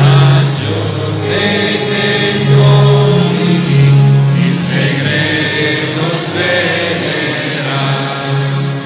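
A congregation singing an Italian hymn together, with long held notes.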